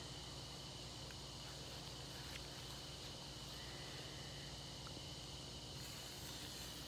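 Faint, steady outdoor night ambience: a constant chorus of night insects, with a few faint clicks.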